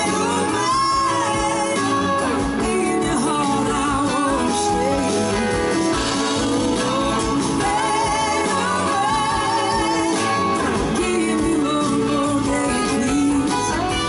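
Live blues-rock band playing, with a woman singing lead over electric guitars.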